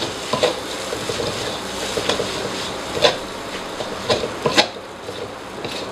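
Spatula scraping and knocking against a metal wok as fried instant noodles are stir-fried, with a steady sizzle underneath and a sharp knock every second or so.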